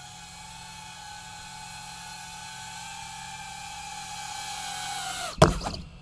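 Pavo30 cinewhoop's brushless motors and ducted propellers whining, growing louder as the quadcopter approaches. About five seconds in the pitch drops suddenly and a loud thump and a few smaller knocks follow as it touches down on the wooden deck, the motors winding down.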